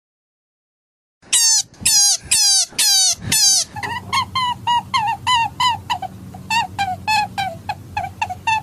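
Hare squealing: about a second in, five loud cries that each fall in pitch, then a quick run of shorter, quieter squeals, two or three a second, over a low steady hum.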